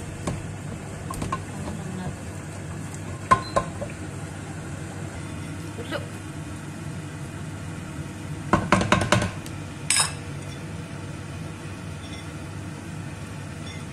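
Wooden spoon stirring and scraping a sardine-and-egg mixture in a non-stick pot, with scattered knocks of the spoon against the pot and a quick run of about five knocks a little past halfway.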